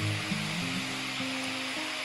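Background music of held notes changing every fraction of a second, over a steady hiss.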